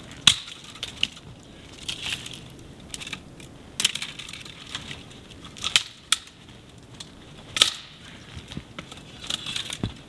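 Footsteps crunching in deep snow, a heavy crunch roughly every two seconds.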